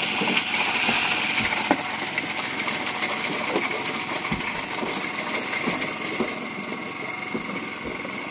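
A small engine on an outrigger fishing boat running steadily, with a few light knocks on top.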